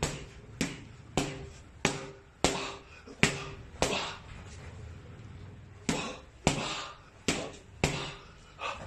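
Boxing gloves punching hand-held pads: a run of sharp smacks about every half to two-thirds of a second, with a pause of about two seconds in the middle before the punches resume.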